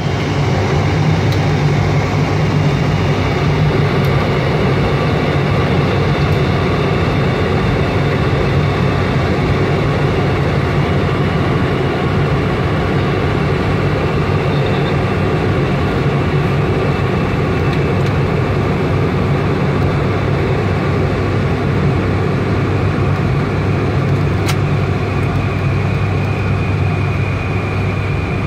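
ATR 72-600 turboprop airliner on approach, heard from inside the cockpit: a steady drone of its twin turboprop engines and propellers, mixed with rushing airflow noise.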